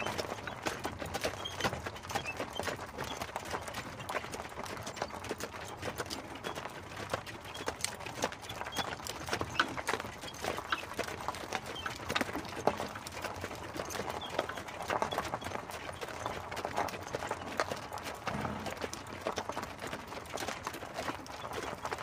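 Hooves of a two-horse team clip-clopping as they pull an open carriage, the pair's hoofbeats overlapping unevenly and continuing without a break.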